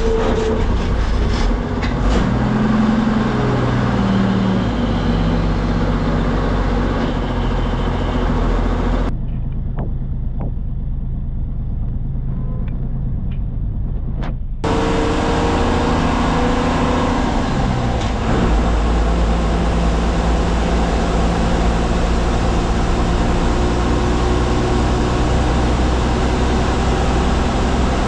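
The engine of an MSRTC bus running on the road, heard from inside the driver's cabin, its pitch rising and falling as the bus speeds up and changes gear. For about five seconds in the middle the sound turns muffled.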